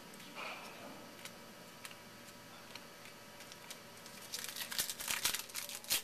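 A baseball card pack wrapper crinkling and tearing as it is opened by hand. It starts about four seconds in as a loud, dense crackle.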